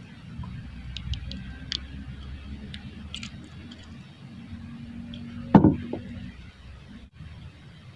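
Handling noises in a wooden outrigger canoe: a few small clicks, then one louder knock against the wooden hull about five and a half seconds in, over a low steady rumble.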